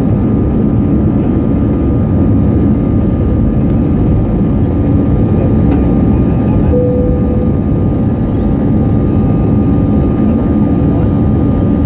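Airbus A320's CFM56 jet engines running steadily, a loud continuous rumble and roar heard from inside the passenger cabin.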